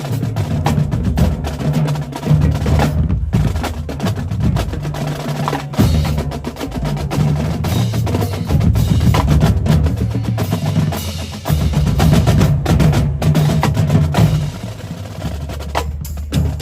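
Marching drumline playing: rapid snare drum strokes over deep bass drums that step between different pitches.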